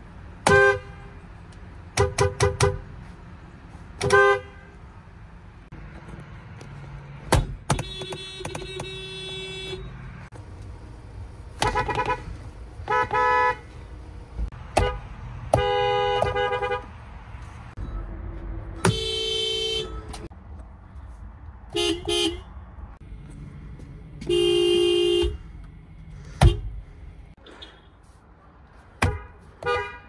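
Car horns of several Japanese cars, among them Honda and Toyota, honked one car after another. The first few seconds hold quick short taps, then come longer honks of about a second or two each, with sharp clicks between some of them.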